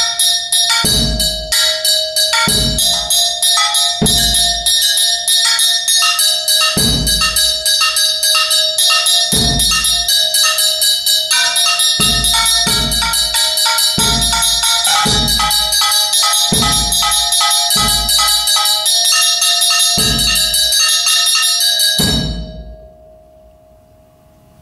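Solo multiple-percussion playing: fast, continuous strikes on metal objects with bright ringing overtones, punctuated by low bass-drum kicks from a foot pedal about every one to two seconds. It all stops suddenly near the end.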